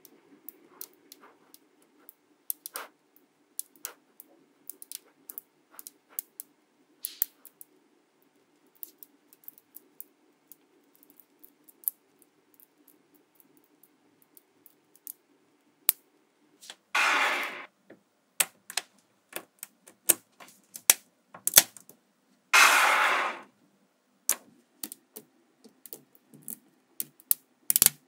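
Small neodymium magnetic balls clicking sharply one by one as they snap onto a cluster of balls, at an irregular pace like typing. In the second half, three louder rattles, each under a second long, as the packed balls shift against each other.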